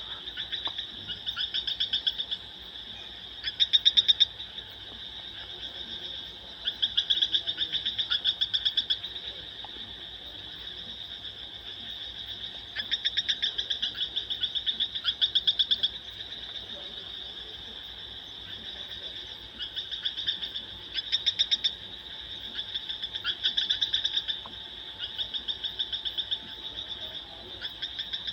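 A bird giving rapid trilled calls, about ten bouts of one to two seconds each, over a steady high-pitched background drone.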